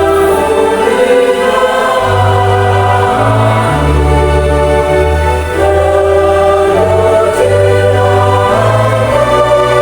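Choir of equal voices singing in harmony with church organ accompaniment, the organ's low bass notes held and changing pitch under the sustained singing.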